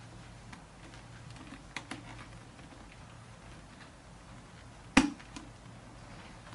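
Hands handling a motorcycle helmet, with light taps and small clicks over a low steady hum: two small clicks just before two seconds in and one sharp snap about five seconds in, as a cheek pad is pressed back into place.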